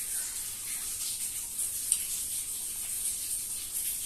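Crunching of fried chicken cartilage being chewed, faint scraping crackles over a steady hiss, with one sharp click about halfway through.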